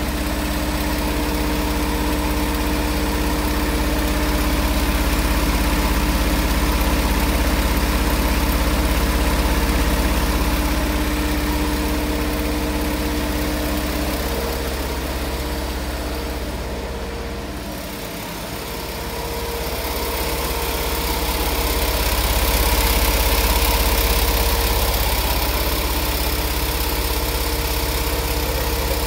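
Richpeace high-speed multi-needle quilting machine running, its rows of needles stitching straight lines. It makes a steady mechanical drone with a deep rumble and a few held hum tones, dipping briefly a little past the middle.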